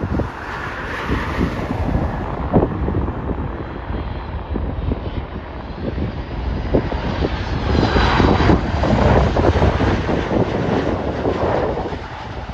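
Twin-engine jet airliner on approach passing low overhead: the engine roar swells to its loudest about eight seconds in, then eases off near the end.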